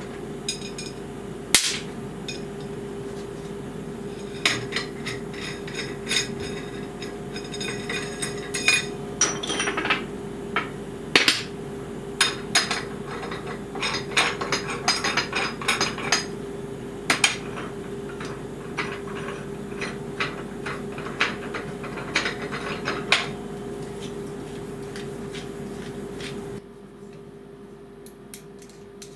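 Metal parts (steel nuts, washers and rods) clinking and knocking against each other and the workbench as they are handled and fitted together. Many sharp clinks are spread irregularly through it, over a steady low hum that drops away near the end.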